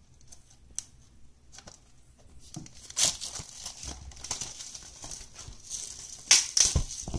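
Plastic shrink-wrap being torn and peeled off a Blu-ray case, crinkling and crackling. It starts with a few faint clicks, grows louder about three seconds in, and the loudest crackles come near the end.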